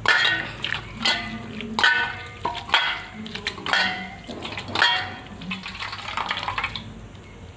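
Boiled Indian sorrel (changeri tenga) leaves squeezed and mashed by hand in water in a steel bowl. Wet squelching and splashing comes about once a second and grows fainter after about five seconds.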